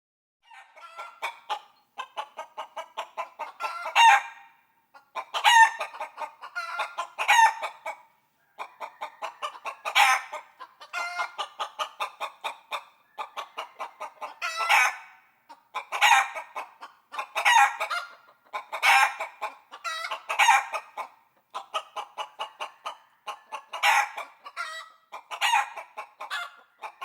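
Chickens clucking in quick runs, with louder, longer calls every second or two.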